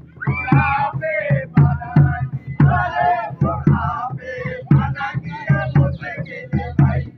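Male voices singing and chanting a Holi folk song over a steady drum beat, about two beats a second.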